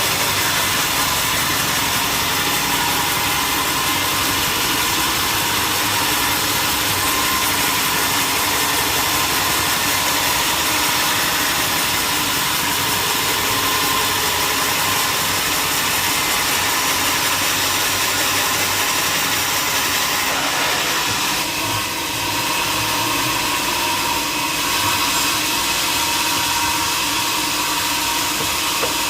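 Sawmill machinery running steadily with a constant whine, the sound shifting slightly about two thirds of the way through.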